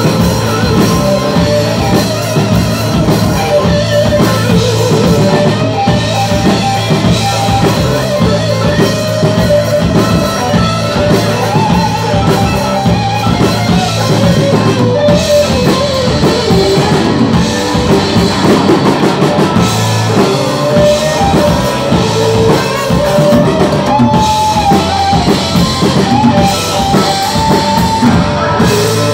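Live rock band playing loud: electric guitar over a driving drum kit.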